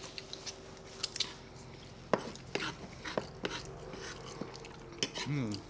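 Close-up eating sounds: chewing and mouth noises with scattered sharp clicks of metal forks against a wooden board, and a short hummed 'mm' near the end.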